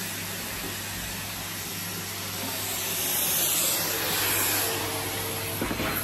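Henry tub vacuum cleaner running with its dust brush attachment, a steady suction hiss over a low motor hum. The hiss swells louder from about three seconds in as the nozzle moves.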